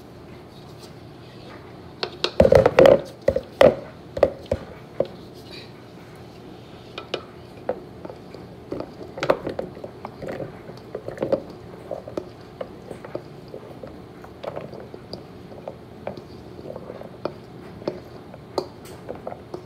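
Stainless steel mixing bowl knocking and clattering against the rim of a plastic bowl as salad is tipped out of it: a cluster of loud knocks about two to four seconds in, then scattered lighter clicks and knocks.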